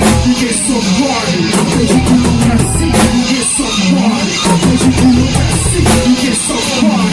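Band music without vocals: a drum kit keeping a steady beat under a bass line and guitar.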